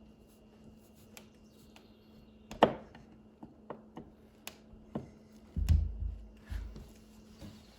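Hand work with small hardware: a series of sharp separate clicks and taps, the loudest about two and a half seconds in, with a few low bumps around the six-second mark, over a faint steady hum.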